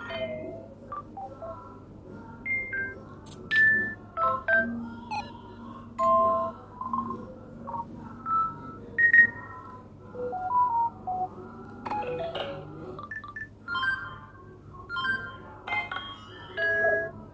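Samsung Galaxy A12 ringtone playing: short electronic beeping notes at scattered pitches, in a sparse, irregular pattern.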